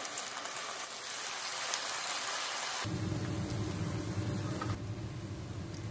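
Vegetable pancakes frying in shallow oil: a steady sizzle. About three seconds in the sound changes abruptly, the sizzle gets quieter and a low steady rumble joins it.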